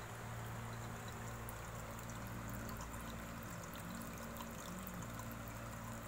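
Water pouring from an outlet pipe and trickling down through the media trays of an aquarium tray filter, with many small drips, over a steady low hum.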